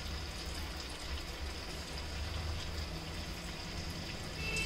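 Paneer deep-frying in hot oil in a steel kadai: a steady bubbling sizzle.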